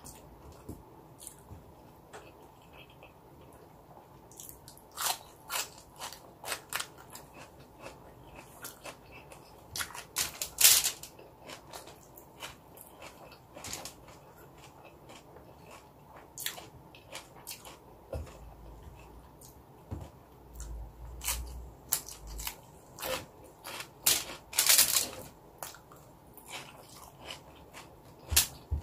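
Close-up eating sounds: rice chewed and mouth clicks and smacks as it is eaten by hand. Scattered sharp clicks and crinkles come from fingers gathering rice off a plastic sheet laid over aluminium foil.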